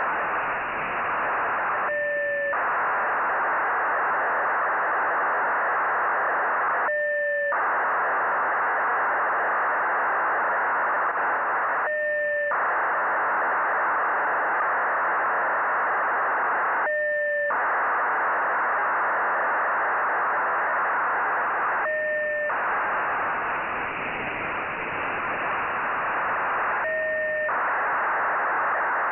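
Nayif-1 (EO-88) satellite's 1200 bps BPSK telemetry downlink heard through a software-defined radio receiver. It sounds like a steady rushing hiss of data, broken every five seconds by a short pause holding two steady tones, one high and one low, between telemetry frames.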